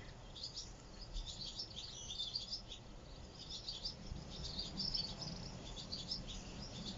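Small birds chirping and twittering in a dawn chorus: many short, high calls overlapping one another, heard faintly.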